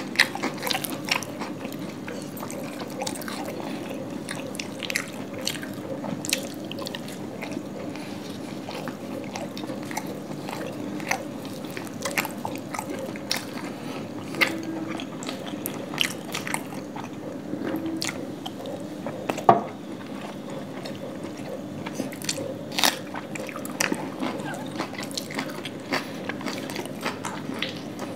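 Close-miked eating sounds of two people biting and chewing flaky laccha paratha and chicken curry by hand. Irregular small smacks and crunches, with one sharper click about two-thirds of the way through, over a steady low hum.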